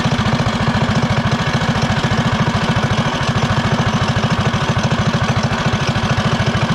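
Coleman CT200EX minibike's small single-cylinder engine idling steadily with a fast, even putter, breathing through a homemade Flowmaster-style muffler.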